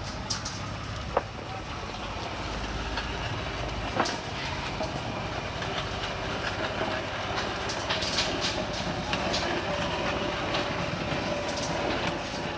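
Spawning machine pressing compost as it runs on its wheels along the mushroom shelf rails: a steady mechanical running noise, with two sharp clicks about one and four seconds in and a faint steady hum in the second half.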